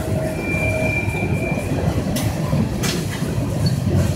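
CN freight cars rolling past with a steady low rumble. A thin high wheel squeal comes in briefly over the first second and a half as the train takes the junction onto the diverging line, and a little past halfway two sharp clacks sound as wheels cross the rail joints.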